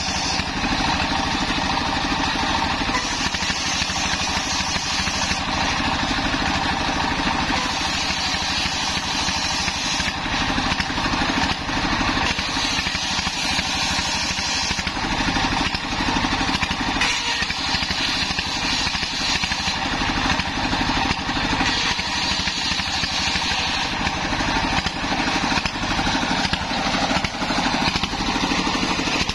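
Single-cylinder diesel engine running steadily, driving a homemade table circular saw that is ripping a waru (sea hibiscus) log lengthwise into boards, the blade's cutting noise over the engine.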